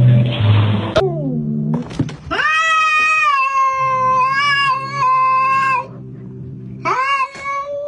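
Music cuts off about a second in, then a cat meows: a short falling call, one long drawn-out yowl of about three and a half seconds, and a shorter yowl near the end.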